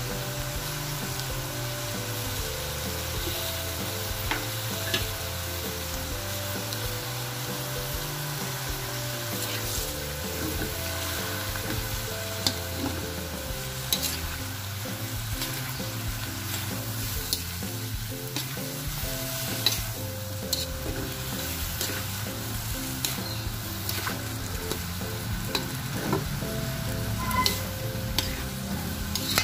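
Cabbage, shrimp and vegetables sizzling steadily in a hot pan as they are stir-fried, with irregular sharp clicks and scrapes of the utensil against the pan.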